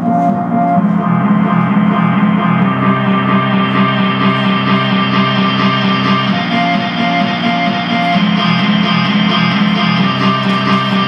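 Live electronic music played on a keyboard synthesizer with a laptop: steady held chords that shift now and then, with few sharp beats.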